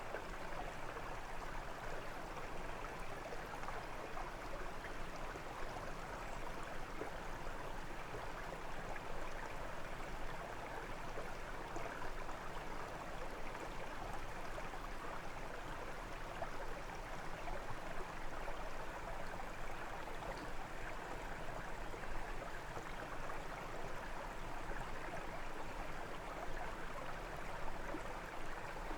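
A brook running steadily over stones, an even rush and babble of flowing water.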